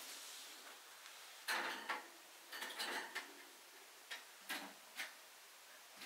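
White Java sparrow sneezing again and again in a fit that won't stop: a string of short, sharp little sneezes, some single and some in quick clusters, starting about a second and a half in.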